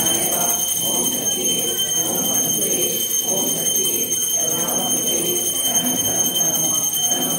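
Puja hand bell rung continuously, holding several steady high ringing tones, over a group of voices chanting.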